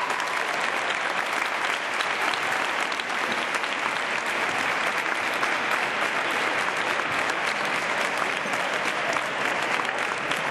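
Audience applauding steadily: a dense patter of many hands clapping that neither builds nor fades.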